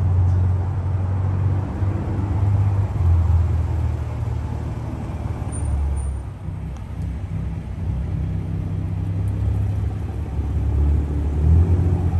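Toyota MK5 Supra's engine and exhaust running at low revs as the car rolls slowly by, a low rumble that swells and eases.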